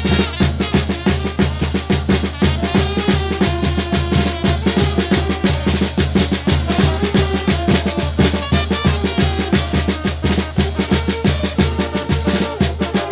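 Banda music: a brass band with drums playing a melody over a steady, evenly pulsing beat.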